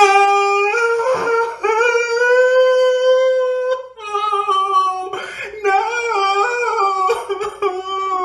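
A single voice singing a slow unaccompanied melody in long held notes, in four or five phrases.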